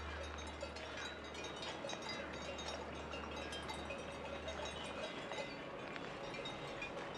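Quiet rural outdoor ambience with distant cowbells clinking faintly and irregularly, over a low steady hum that stops about five seconds in.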